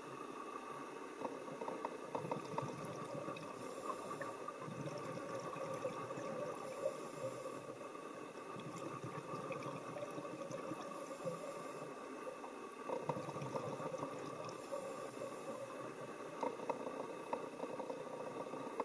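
Underwater sound heard through a camera housing: a scuba diver's regulator breathing, with a short hiss about every four seconds, and bubbling and small clicks over a steady hum.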